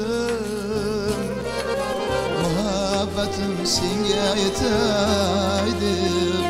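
Live Uzbek folk ensemble music: a plucked long-necked lute and keyboard with steady bass notes, under a wavering melody line with vibrato.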